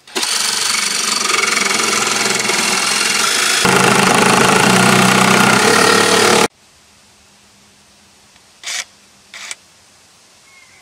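DeWalt cordless jigsaw cutting through aluminium 80/20 extrusion for about six seconds, growing louder and deeper partway through, then stopping abruptly; the cut strips the teeth off the blade. Two short bursts follow near the end.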